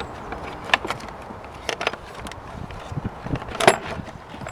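Scattered clicks and knocks of a car's plastic battery tray being worked loose and lifted out of the engine bay, the loudest knock about three and a half seconds in.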